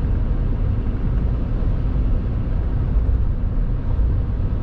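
Steady driving noise inside a moving pickup truck's cab: a low, even rumble of engine and road with tyre hiss above it.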